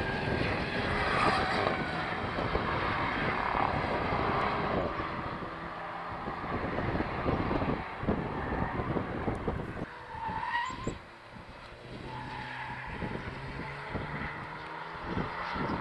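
Alpine A110S's turbocharged 1.8-litre four-cylinder engine running hard on a race track. The engine note drops away about two-thirds of the way through as the car slows for a corner, then rises again as it accelerates out toward the microphone.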